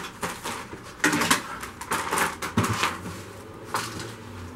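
A handful of irregular clicks and clatters of hard plastic being handled: a just-removed plastic engine-bay shroud and its push pins.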